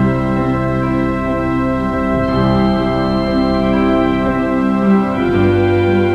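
Organ playing held chords, the notes sustaining steadily and moving to a new chord about two seconds in and again about five seconds in.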